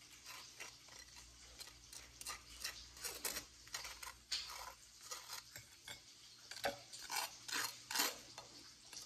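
Table knife spreading mayonnaise across toasted bread: a quiet run of short scrapes, with a few sharper strokes in the last few seconds.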